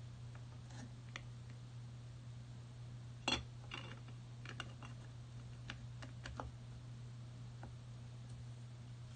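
A person clicking and tapping at a device: scattered sharp clicks, the loudest about three seconds in and a cluster over the next few seconds, over a steady low hum.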